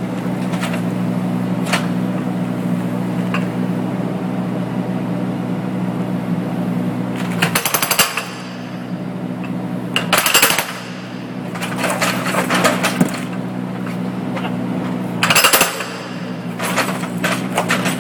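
Jackhammer hammering on a LINE-X-coated cinder block in five short bursts of rapid blows, starting about seven and a half seconds in, over a steady engine hum.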